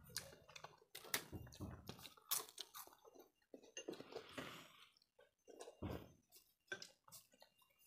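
Chewing and eating sounds of rice and curry eaten by hand, heard as a run of short, irregular mouth clicks and smacks.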